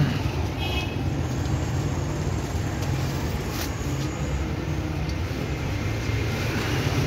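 A steady low rumble of background noise, with a few faint light ticks about three and a half to four seconds in.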